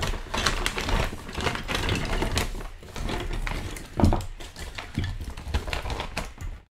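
Clear plastic bag crinkling and hard resin model parts clicking and tapping against each other as a heavy piece is worked out of its bag, with a louder knock about four seconds in.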